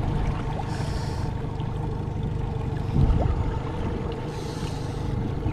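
Boat's outboard motor running steadily with an even hum, with water and hull noise and a brief bump about three seconds in.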